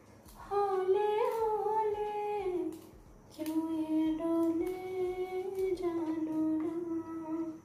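A woman humming a tune in long held notes, pausing briefly about three seconds in. A few sharp clicks come from a kitchen knife cutting through long beans.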